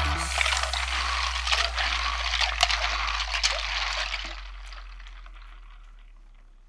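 Plastic Tandy 1000 keycaps being stirred by hand in a bowl of warm soapy water: water sloshing with many small clicks of keycaps knocking together, dying away a little over four seconds in.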